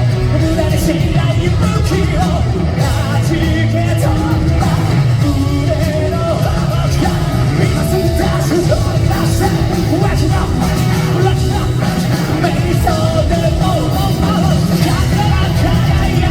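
Live J-rock band playing loud, with a male lead singer's powerful vocals over electric guitar, bass and drums, recorded from the audience.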